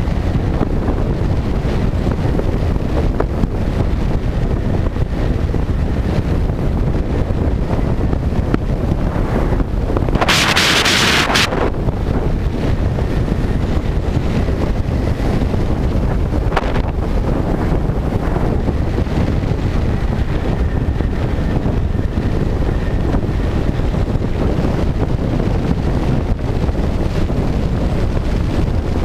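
Wind rushing over the microphone of a camera on a moving motorcycle, a loud steady buffeting that covers the engine. About ten seconds in, a louder hiss lasts about a second.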